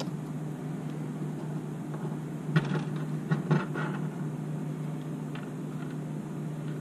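A few light clicks of small metal pistol parts handled in the fingers as a locking screw is started onto a spring-loaded guide rod, over a steady low hum.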